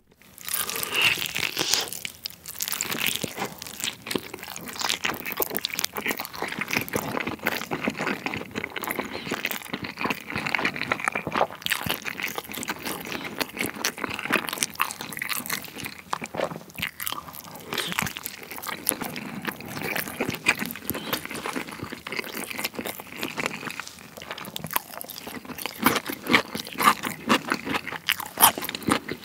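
Close-miked biting and chewing of a sauce-glazed roast chicken drumstick (BBQ Jamaica drumstick): a steady run of many small clicks and smacks of mouth and meat.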